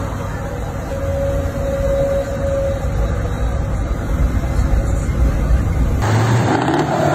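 Heavy truck V8 engines running hard uphill with road noise, heard from inside a truck cab as an old Iveco Turbostar 190.48 with a tuned V8 overtakes. About six seconds in, the sound switches abruptly to something different.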